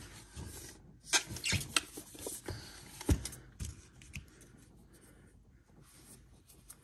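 Rustles and light clicks as a wrapped box set of oil sticks is handled and set down on a tabletop, with one solid knock about three seconds in. The handling stops about four seconds in.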